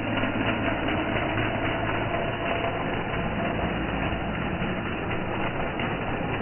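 Train running with a steady rumble and a constant low hum.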